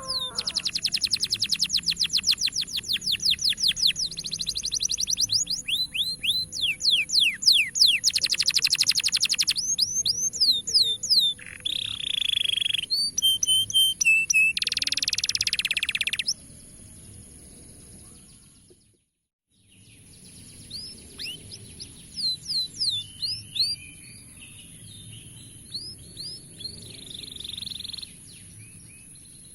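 Canary singing: fast rolling trills and chirps, loud through the first half, then quieter, with a brief break to silence about two-thirds of the way through.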